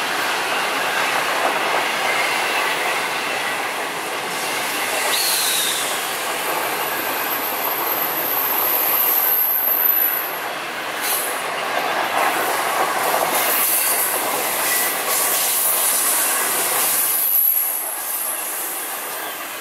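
Passenger coaches rolling past close by: a steady rumble of wheels on rail with a clatter over the rail joints. It fades near the end as the last coaches move away.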